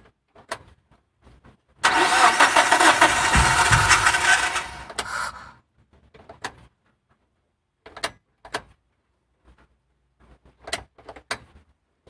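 Suzuki APV engine cranked on the starter for about three seconds, with its fuel hose just emptied and needing to be pumped full again. The sound then fades away, and a few scattered sharp clicks follow.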